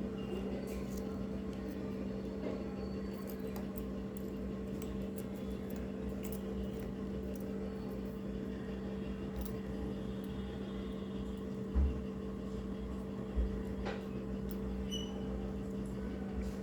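A steady mechanical hum in a small room, with a few faint light clicks and two dull low thumps about twelve and thirteen and a half seconds in.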